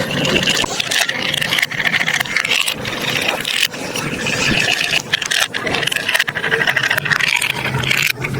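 Marbles rolling and clattering along a plastic building-block marble run: a continuous rolling rumble with many rapid clicks of marbles against the track.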